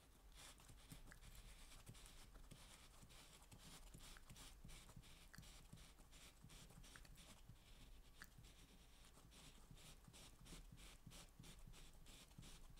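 Faint, rapid scratching and rubbing of small metal parts as a watchmaker's lathe chuck is worked apart by hand, many short strokes a second.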